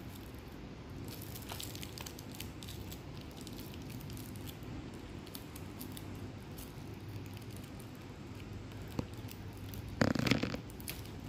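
Faint crinkling and rustling of a shiny candy wrapper as a child's fingers pick it open, over a low steady room hum. A louder burst of crinkling comes about ten seconds in.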